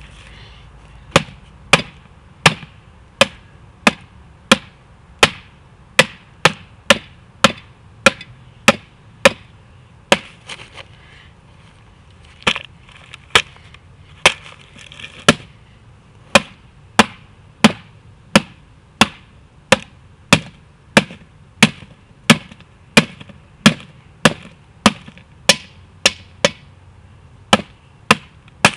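Sharp, loud knocks of a pointed metal tool stabbed again and again through layers of notebook paper into a concrete cinder block, about one to two strikes a second, with a short pause about ten seconds in.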